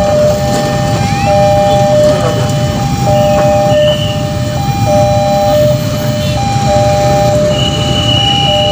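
Railway level-crossing warning alarm sounding a steady two-tone ding-dong, a higher and a lower note alternating about once a second each, warning that a train is coming and the barrier is closed. A steady low rumble runs underneath, and a brief high tone sounds near the end.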